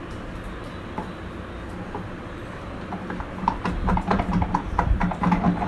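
A hand beating thick ground urad dal batter in a bowl. A quick, irregular run of wet slaps starts about three seconds in.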